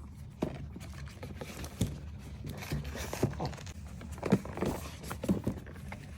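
A chihuahua scratching and nosing at a cardboard dog advent calendar to get a door open: irregular scratches, taps and scrapes over a steady low hum.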